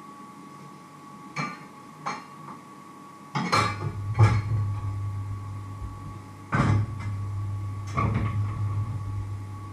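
Kitchen clatter: metal pans and utensils being knocked and set down on a wooden counter, two light knocks followed by several louder clanks. A low hum runs under the louder clanks from about a third of the way in.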